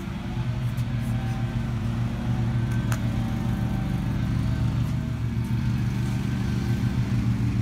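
Riding lawn mower engine running with a steady low drone.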